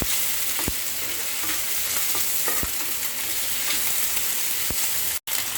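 Pieces of marinated pork tenderloin sizzling steadily as they shallow-fry in hot oil, with three light ticks about two seconds apart. The sound cuts out for an instant near the end.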